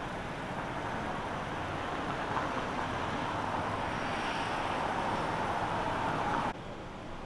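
A car passing on the street, its road noise growing louder and then cut off suddenly near the end.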